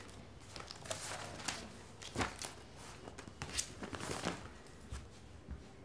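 Soft, scattered taps and rustles in a small tiled room, with a few sharper clicks: a barefoot woman getting up from the sofa, setting down papers and walking across the floor to the door.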